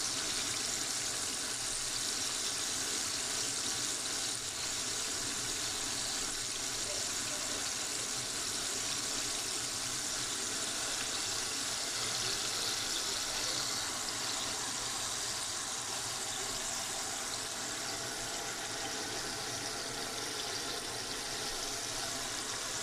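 Battered chicken pieces deep-frying in bubbling hot oil in a pan: a steady, even sizzle.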